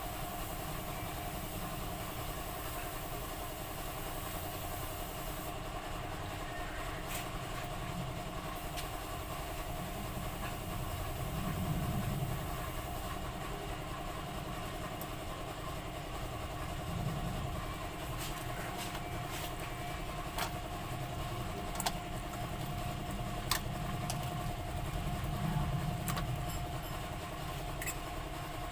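A steady mechanical hum, like a motor or engine idling, with a few faint ticks and taps scattered through it.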